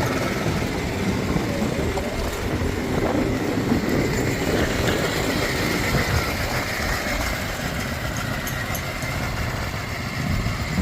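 A passenger train running with a steady rumble, a faint steady high tone joining about halfway through.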